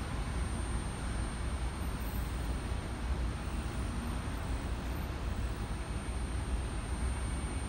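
Steady low rumble and hum of a Keikyu 1000-series electric train standing at a covered station platform, with a thin, steady high-pitched whine throughout.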